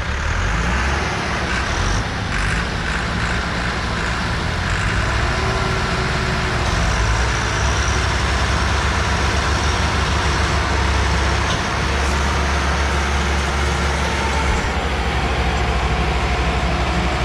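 Diesel engines of two Massey Ferguson tractors working hard under load: one tractor pulls a second one that is stuck with a fully loaded trolley, and black smoke rises from the exhaust. Their steady, heavy running fills the whole stretch.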